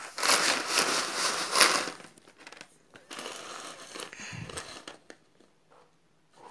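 Small plastic bingo tokens being stirred by hand in a cardboard tray, rattling and scraping against each other. It is loudest over the first two seconds, then there is a quieter stretch of shuffling about a second later.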